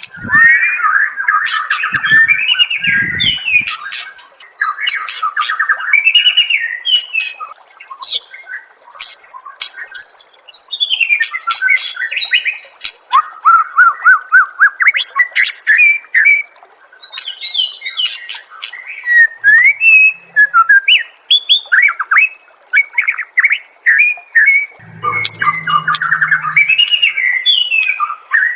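White-rumped shama (murai batu) singing a loud, varied song of whistled phrases, fast trills and sharp clicking chatter, with short pauses between bursts.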